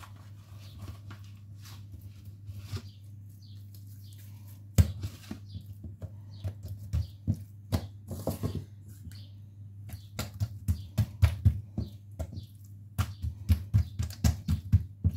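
Hands patting and slapping balls of soft yeast dough on a tiled countertop, a string of short soft taps with one sharper knock about five seconds in, then a quick run of pats near the end as the dough is pressed flat.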